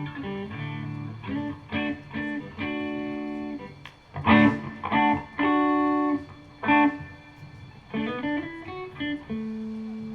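Guitar being played: a run of plucked notes and chords, each ringing out, ending on a long held note.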